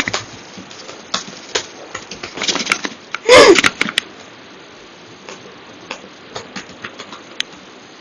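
A woman hiccupping. One loud hiccup with a short voiced yelp that drops in pitch comes a little after three seconds in. Fainter clicks and small catches in the throat sound around it.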